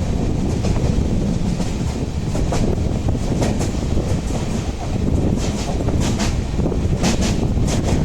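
Pandian Express passing at speed: a steady rolling rumble, with the wheels clattering over rail joints in quick groups of clacks.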